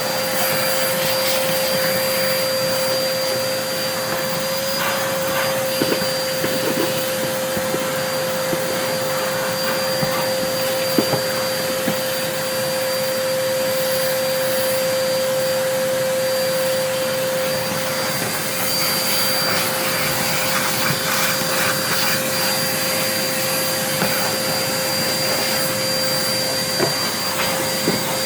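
Numatic tub vacuum cleaner running steadily at full speed, a constant motor hum with a high whine over the rush of air, with a few light knocks.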